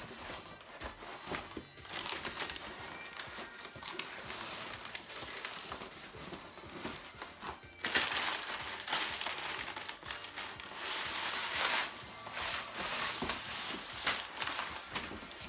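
Crumpled brown kraft packing paper rustling and crinkling as it is pulled out of a cardboard box; loudest about eight seconds in and again near twelve.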